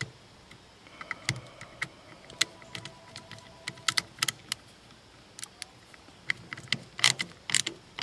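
Ratcheting screwdriver driving a small screw into a GFCI plug's plastic housing: a string of irregular ratchet clicks, louder and quicker near the end.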